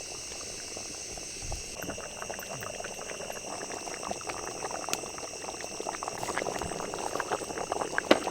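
Thick chicken curry bubbling and popping in a cast iron pot over a wood fire, the bubbling growing busier from about two seconds in.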